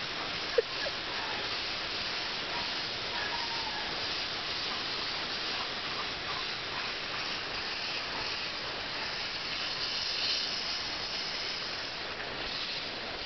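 Lawn sprinkler water spray hissing steadily, with one sharp click a little over half a second in and a brief swell in the hiss about ten seconds in.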